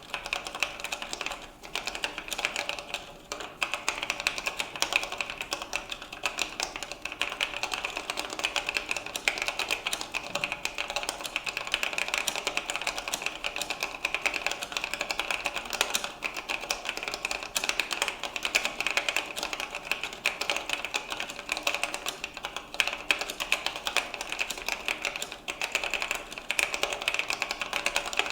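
Fast, continuous typing on a vintage Leading Edge Wal1 keyboard with Oak Full-Travel Membrane switches: a dense stream of key clicks with brief pauses.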